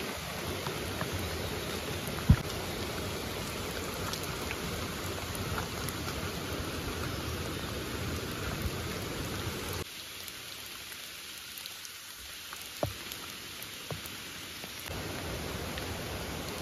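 Steady rushing outdoor background noise, broken by a few sharp snaps, the loudest about two seconds in. The noise turns quieter for about five seconds from around ten seconds in.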